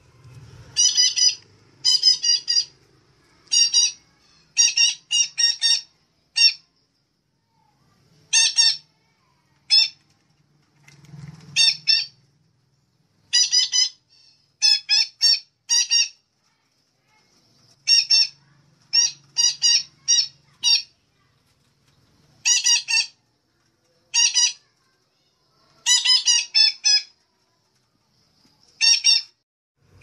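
Betet kelapa parrot (Tanygnathus) giving short, loud calls in clusters of one to four, repeating every second or two. It is a recorded lure call (suara pikat) used to draw in wild betet.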